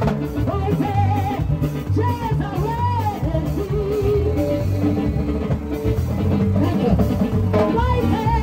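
Gospel band music over a loudspeaker, with a steady bass and drum beat and a woman singing lead into a microphone.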